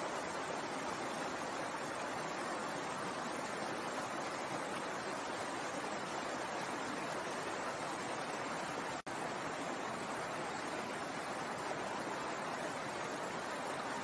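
A shallow stream running over rocks in small cascades, a steady, even rush of water. The sound cuts out for an instant about nine seconds in.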